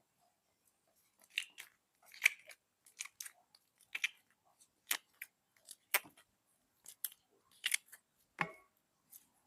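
Slime being squeezed and popped by hand: a series of short, sharp crackling pops, irregular at about one or two a second.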